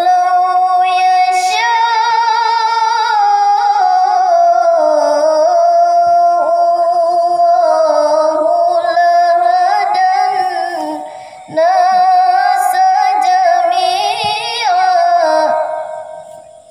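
A young girl's voice chanting Quran recitation (tilawah) in a melodic, ornamented style, amplified through a handheld karaoke microphone. The notes are long, wavering and held, in two long phrases split by a brief breath about eleven seconds in, and the voice fades out near the end.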